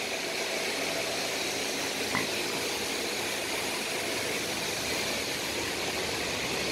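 Steady, even hiss of room noise with no clear mechanical rhythm, and one faint tap about two seconds in.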